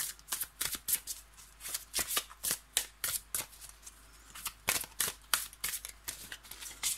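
A deck of oracle cards being shuffled by hand: a quick, irregular run of short slaps and swishes of card against card, thinning briefly about four seconds in. The shuffle comes before a card is drawn for the reading.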